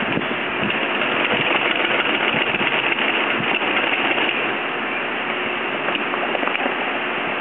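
Industrial sewing machine stitching heavy sailcloth: a fast, steady run of needle strokes, a little louder from about a second in until about halfway through.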